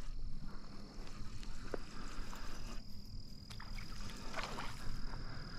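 A hooked panfish splashing faintly a few times at the lake surface as it fights on the line, over a steady thin high whine.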